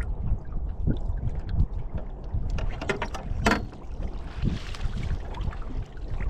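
Wind buffeting the microphone and lake chop slapping a boat's hull, with a sharp splash about three and a half seconds in and more splashing after it as a crappie is netted at the surface.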